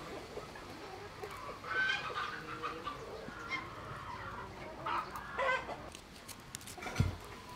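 Chickens clucking in short, separate calls, with one sharp knock near the end.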